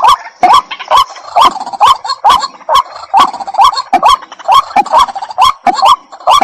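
Waterhen calling, a loud, harsh call repeated over and over at an even pace of about two a second.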